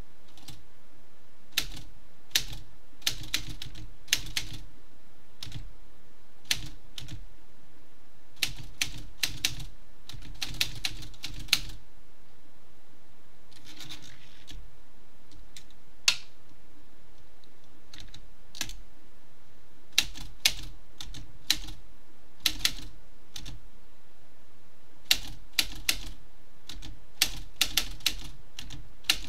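Typewriter keys being struck: sharp clacks in irregular bursts of a few strokes each, with pauses between the bursts.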